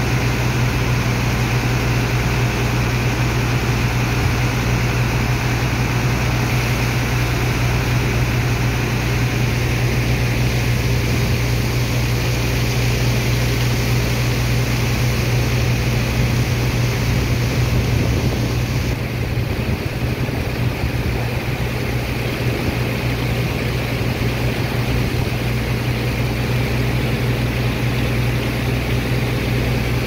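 Sand dredger pump's engine running steadily with a deep hum, under a constant rush of water and sand slurry gushing from the pump hose. The rushing thins slightly about two-thirds of the way through.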